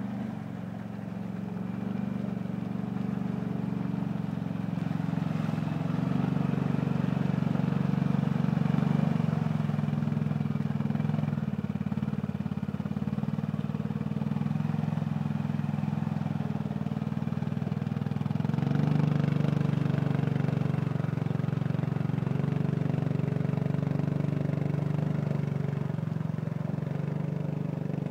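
Honda ATV engine running under heavy load as the quad pushes through a muddy forest stream, the revs rising and falling with the throttle, climbing noticeably around the middle and again about two-thirds of the way through.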